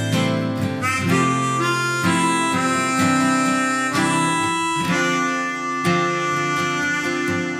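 Instrumental intro of a pop song: a harmonica melody over acoustic guitar.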